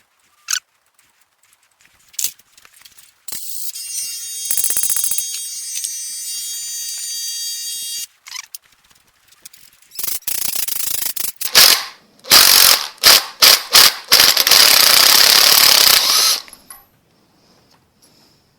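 Power tools working the broken stud out of a Ford flathead V8 block through a nut welded onto it. A steady whine runs for about five seconds. After a pause come a string of loud short bursts and then a loud, even, noisy run of about two seconds.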